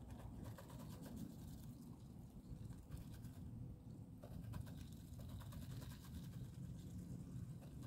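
A mallard drake dabbling grain from a feed bowl: faint, irregular clicks and rustles of its bill in the feed, over a low steady rumble.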